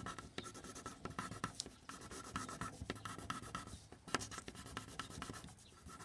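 Graphite pencil scratching on paper in quick, irregular back-and-forth strokes, pressed hard to shade a tree trunk dark.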